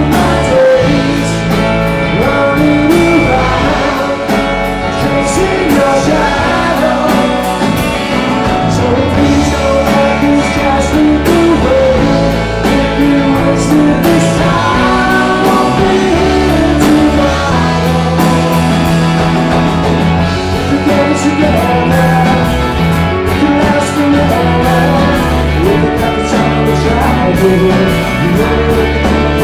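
Live rock band playing loud: a male lead singer over electric guitars, bass and drums.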